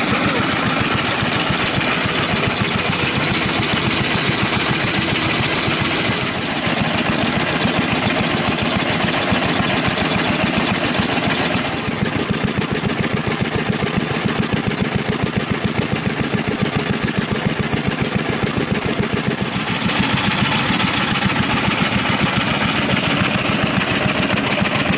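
Old Kubota AHD stationary engine (a Japanese hatsudoki rated 2.5–3 hp) running steadily, with a fast, even beat of firing strokes.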